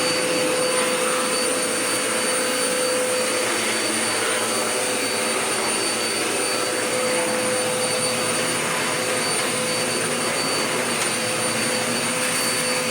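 Dirt Devil Power Max vacuum cleaner running steadily, a constant rush of air with a steady high whine from the motor.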